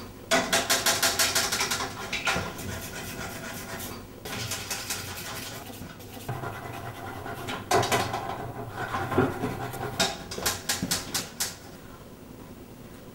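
A toilet being scrubbed: bursts of rapid back-and-forth scrubbing strokes, about eight a second, with quieter rubbing in between. The strokes stop shortly before the end.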